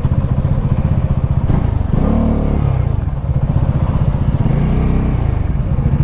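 Bajaj Dominar 400's single-cylinder engine running at low revs, its pitch rising as it picks up speed about two seconds in and again near five seconds.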